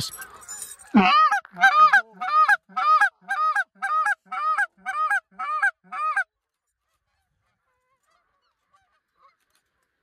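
Canada goose honking: one repeated honk, about ten evenly spaced calls at roughly two a second, that stops suddenly about six seconds in.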